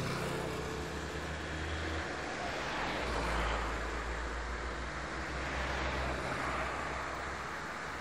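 Road traffic passing close by, tyre and engine noise swelling and fading a few times over a steady low rumble.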